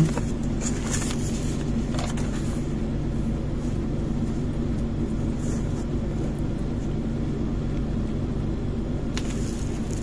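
A steady low mechanical hum, even throughout, with a few faint ticks.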